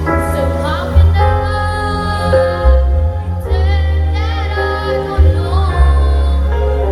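A song: a female voice singing long held notes with vibrato over music with a heavy, steady bass.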